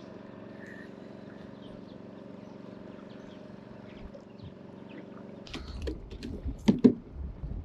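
A steady low mechanical hum that stops about five and a half seconds in, followed by wind rumbling on the microphone and a few sharp knocks.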